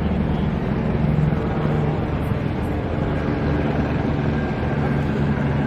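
Steady low engine drone, even throughout.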